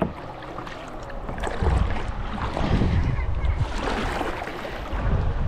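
Water rushing and splashing around a kayak running mild river rapids, with wind buffeting the microphone in heavy low swells about a second and a half in and again near the end.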